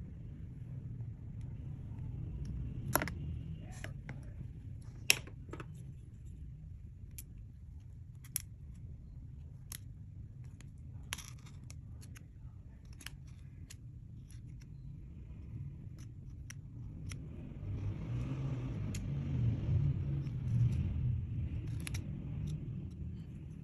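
Clear slime being worked by hand, with scattered sharp sticky pops and clicks. It turns to a denser, louder squelching crackle about three quarters of the way through.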